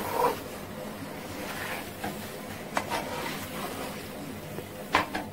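Metal spatula scraping and knocking against an aluminium kadai as thick jackfruit pulp is stirred and pressed while it cooks down, with a few sharp clicks over a steady low hiss.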